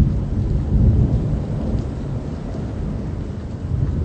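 Thunder: a loud crack right at the start rolls on as a deep rumble, swells again about a second in, slowly dies away and swells once more near the end, over steady rain.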